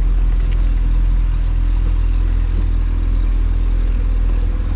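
Small boat's motor running steadily at an even speed, with a low, constant hum.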